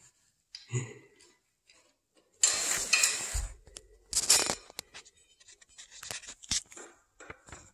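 Handling noise around a small glazed ceramic planter on a window sill: two short rustling, scraping bursts, then a scatter of light clicks and clinks.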